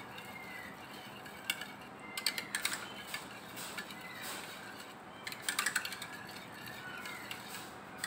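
Metal wire whisk beating yogurt and sugar in a bowl, its wires clicking and scraping against the bowl in short bursts, clustered about two seconds in, again after five seconds and near the end.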